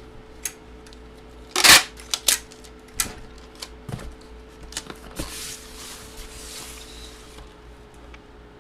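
Handling noises from a box break: a loud scrape about a second and a half in, then scattered sharp clicks and taps and a soft rustle, over a faint steady hum.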